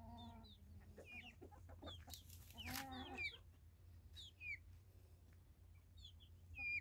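A flock of free-range chickens clucking as they forage, with a longer pitched call at the start and again around three seconds in. Short, high, falling peeps run through it, typical of chicks.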